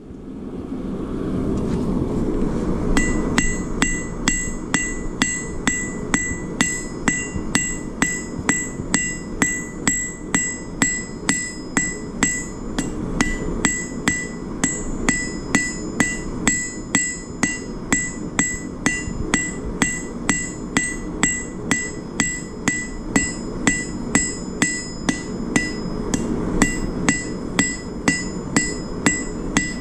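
Blacksmith's hammer striking steel on an anvil, starting about three seconds in and keeping up a steady rhythm of about two blows a second, each blow ringing. A steady low rushing noise runs underneath.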